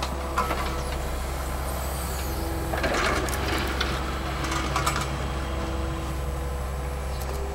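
Yanmar mini excavator's diesel engine running steadily as the machine digs rubble, with short bursts of noise about three seconds and five seconds in.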